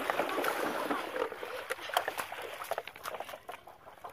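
Water splashing and mud squelching as hands grope in shallow water and wet mud, with many short wet clicks; it is busiest in the first second or so and thins out later.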